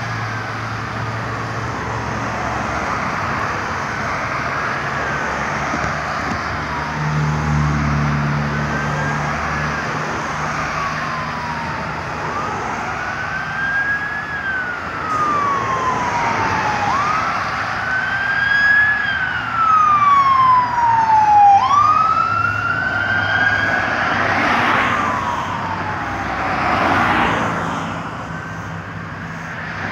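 Emergency vehicle siren wailing, rising and falling about every four seconds, growing louder as the responding unit approaches and loudest about two-thirds through, over the hum of road traffic.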